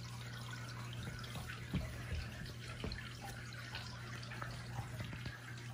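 Steady whirr of a running tower fan, with faint scattered clicks and rustles as a goat kid is petted and moves against a hand and blanket.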